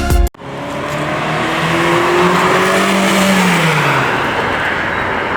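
A car going by: a loud, steady rush of noise with an engine note that rises a little and then drops away about three to four seconds in.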